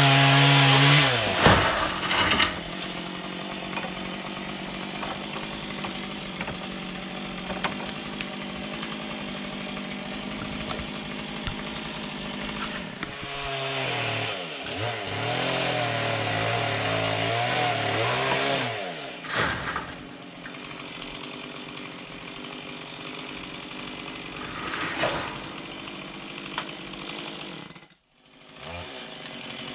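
Stihl chainsaw cutting a tree limb: it is revved hard at the start and again for several seconds in the middle, running more steadily at lower revs in between, with a brief drop-out near the end.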